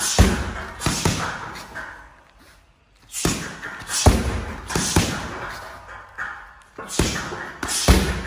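Gloved punches and shin kicks striking a heavy punching bag: hard thuds in three quick runs of a few strikes each, each thud followed by a short echo.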